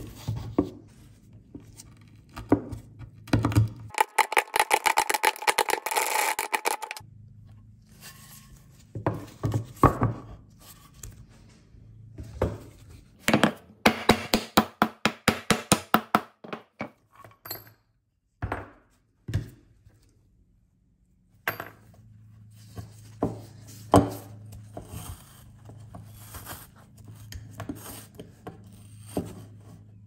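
Hand work on old metal parts: scattered knocks, taps and scrapes as pieces are handled and set down. Twice there is a run of rapid clicking lasting about three seconds.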